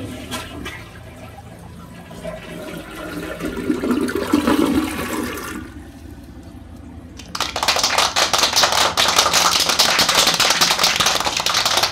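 A two-piece tank toilet flushing: water rushes and swirls down the bowl, building for about five seconds before easing. From about seven seconds in, a louder, hissing rush of water runs until it cuts off near the end.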